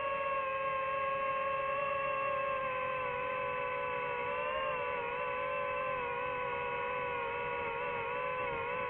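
DJI FPV drone's motors and propellers whining steadily in flight, the pitch wavering slightly as the throttle shifts.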